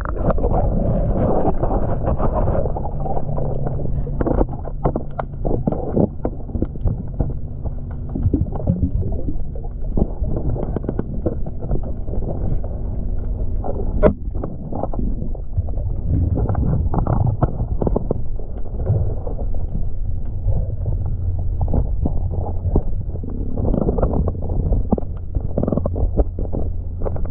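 Muffled underwater work sounds: a diver's bubbling breath with irregular knocks and scrapes of tools on the outboard bracket as the anode mounting plate is unbolted. One sharper click about 14 seconds in.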